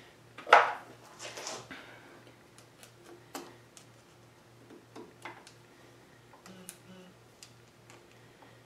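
Small metal parts clicking and tapping as a tiny key pin is worked into the cross-slide ball crank and dial of a South Bend 13-inch lathe: one sharp clink about half a second in, then scattered light ticks.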